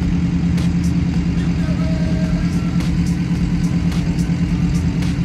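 Subaru Impreza WRX STI's turbocharged flat-four boxer engine idling steadily.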